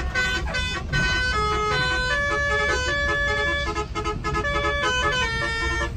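Bus musical air horn (telolet 'basuri' horn) playing a fast tune, its notes stepping up and down every fraction of a second, over the low rumble of the bus engine and road.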